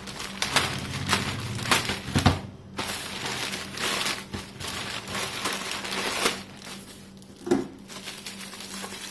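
Product packaging being handled: crinkling and rustling with irregular clicks and knocks.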